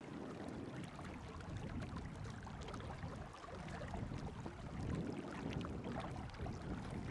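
Steady low rush of river water moving around people wading in it.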